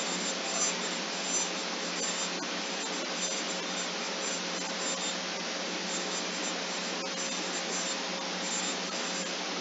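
Steady hiss with a low hum and a fainter higher tone beneath it, and a few faint isolated clicks.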